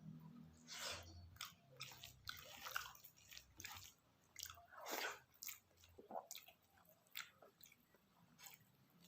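A person chewing and biting food close to the microphone: a run of short, irregular mouth and bite sounds.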